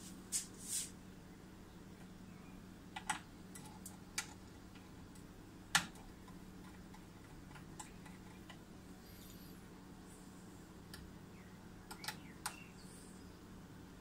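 A few scattered small clicks and ticks as a wire is worked loose from a laser power supply's plug-in terminal connector, one sharper click near the middle, over a faint steady hum.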